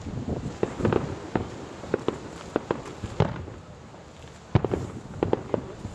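Aerial fireworks exploding in an irregular string of sharp booms and bangs, with a brief lull a little past the middle before another cluster of loud bangs.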